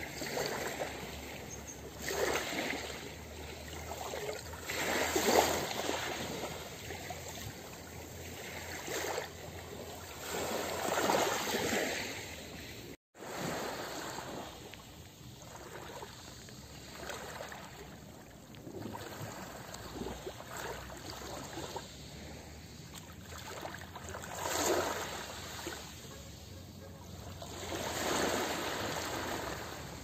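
Small sea waves washing in and out over a pebble beach: a hissing surf that swells and falls every few seconds, with the rattle of pebbles shifted by the water. The sound drops out for an instant about halfway through.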